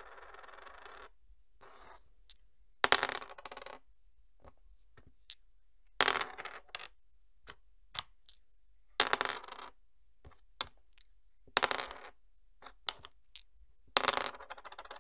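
Two dice thrown onto a hard surface five times, about every three seconds. Each throw is a sharp clatter followed by a few smaller clicks as the dice bounce and settle.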